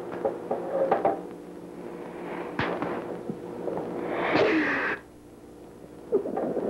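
A woman crying quietly, with sniffs, small clicks of the mouth and shaky, catching breaths; the loudest is one long breath about four seconds in. A steady hum runs underneath.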